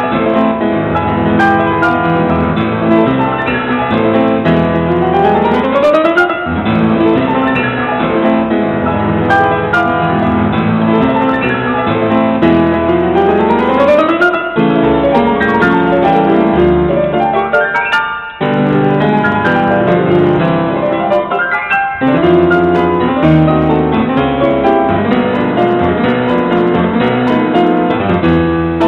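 Background piano music with two rising runs up the keyboard, the first about five seconds in and the second about thirteen seconds in.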